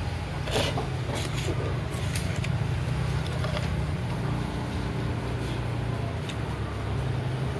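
Steady low rumble of a motor vehicle's engine running close by, with a few light clicks of chopsticks and tableware.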